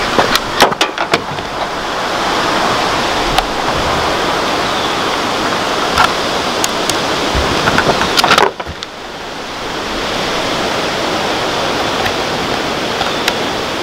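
Steady rushing wind noise on the microphone, with scattered sharp clicks and taps from a trail camera being handled as an SD card is pushed into its slot and its dial and buttons are worked.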